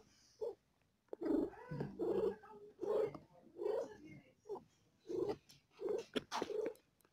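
A mother cat in labor giving a run of short, repeated low calls, about one or two a second, one of them longer with a wavering pitch; they are cries of labor pain.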